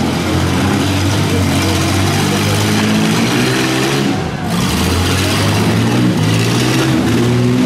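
Several six-cylinder demolition derby car engines running and revving at once, their pitch stepping up and down as the drivers accelerate and back off.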